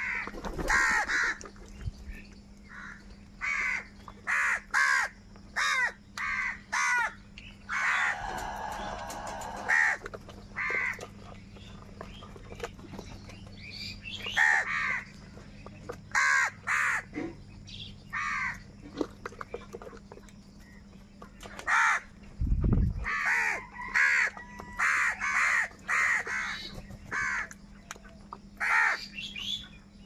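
A flock of house crows cawing over one another, harsh short caws in quick runs with a brief lull past the middle. There is a single low thump about two-thirds of the way through.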